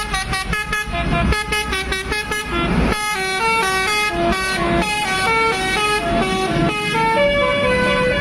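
Bus 'telolet' horn: a multi-tone air horn playing a quick tune of stepped notes, several a second. A low engine rumble runs under it for the first three seconds, then fades.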